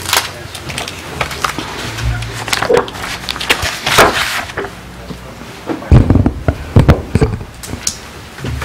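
Irregular knocks, clicks and thumps in a meeting room, with a few heavy low thumps about six to seven seconds in and faint fragments of voices.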